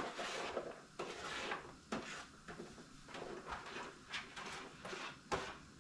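Kitchen handling noises at the stove: a run of short scraping and rustling sounds, with a sharp knock about five seconds in.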